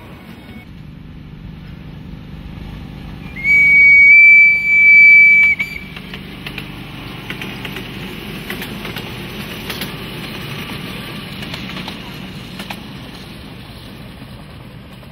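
Ride-on miniature railway train passing, its locomotive giving two loud, high, steady horn blasts about three seconds in. Afterwards the wheels click over the rails over a low running hum as the train goes by.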